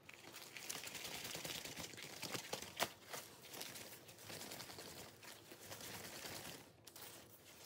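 Faint crumbling and rustling of potting soil as fingers work it loose from a Homalomena's root ball, full of small crackles, with one sharper tick about three seconds in.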